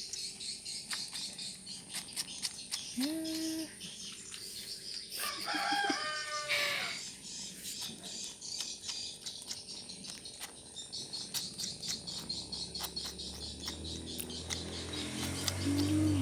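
A rooster crows once, about five seconds in, after a shorter call a couple of seconds before, over a steady high insect drone. A low hum builds up near the end.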